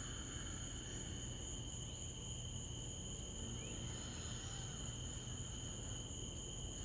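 Steady chorus of night insects such as crickets, a continuous high trill at two pitches, over a faint low rumble.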